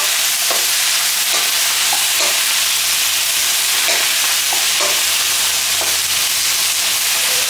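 Vegetables and pineapple chunks sizzling in hot oil in a wok, with a wooden spatula stirring and tossing them in short, irregular strokes.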